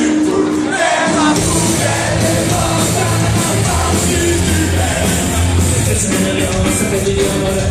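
Live rock band playing loudly in concert. A held note opens, then bass and drums come in about a second and a half in, with some singing or shouted vocals over the band.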